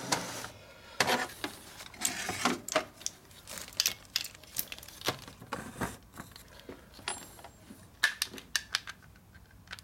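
Metal tools and parts clinking and tapping on a steel workbench while an air impact wrench is picked up and handled, in irregular sharp clicks with a small cluster near the end.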